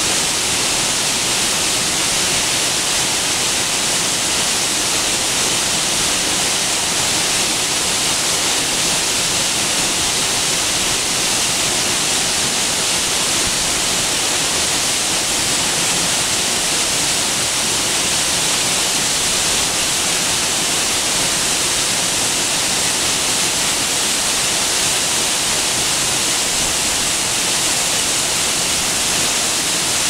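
Waterfall pouring down a rock face into its pool: a loud, steady, hissing rush of falling water that never lets up.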